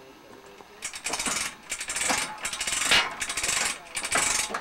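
Metal ratchet clicking rapidly in repeated bursts, four or five strokes of about half a second to a second each, from the hoist rigging on a pipe tripod set over a mine shaft.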